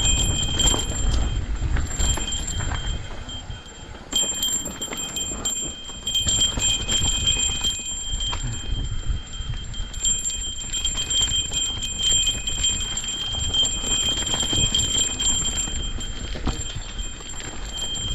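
Mountain bike clattering down a rough trail: irregular knocks and rattles over a low rumble, with a steady high-pitched whine underneath. It eases off briefly about three seconds in, then picks up again.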